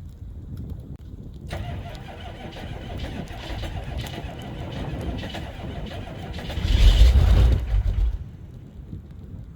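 GM 6.2 diesel V8 of a 1985 Chevrolet K5 Blazer on a cold start. A low rumble gives way to the engine catching and running about a second and a half in. It swells to a loud surge about seven seconds in, then falls back quieter.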